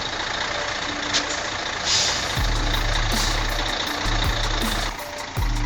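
Mercedes-Benz Actros timber truck's diesel engine working hard as the loaded truck spins its wheels in mud, unable to move; a deep engine rumble comes in about halfway through. Background music with a steady beat plays underneath.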